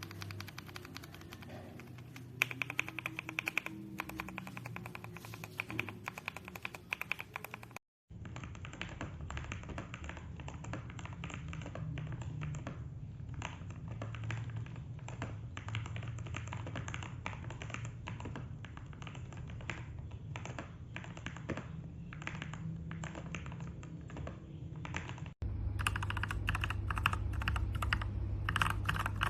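Typing on a mechanical keyboard fitted with Gateron Milky Yellow Pro KS-3 linear switches: rapid, continuous keystrokes. The recording cuts abruptly about eight seconds in and again near the end, and the middle stretch sounds duller.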